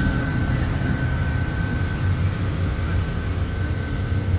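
Steady low rumble and hiss of a steam boiler in steam, with a thin, steady high whistle over it.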